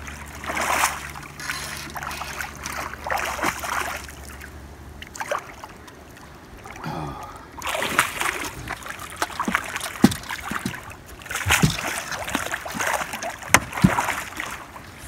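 Flathead catfish thrashing and splashing at the water's surface as it is played beside the boat, in repeated bursts, with a few sharp knocks in the second half. A low steady hum runs underneath and stops about five seconds in.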